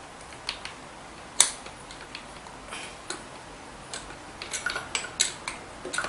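Scattered sharp metal clicks and taps of a tool working a bolt being tightened on a mixer drill's parts, with one loud click about a second and a half in and a quicker run of clicks near the end.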